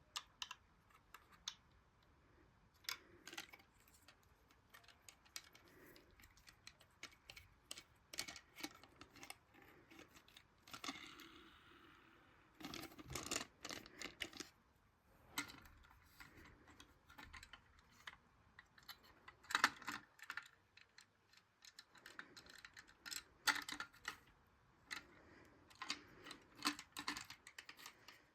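Hands handling a boxed toy train set and its packaging: irregular light clicks, taps and knocks of plastic and cardboard, with a short stretch of rustling about eleven seconds in.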